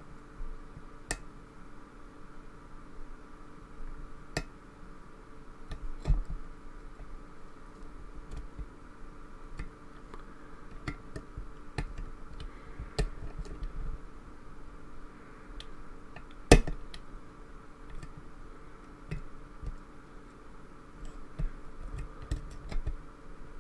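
Lock picking: irregular small metallic clicks and taps of a pick working the pins of a lock held under tension, with one sharper click about two-thirds of the way through, over a faint steady hum.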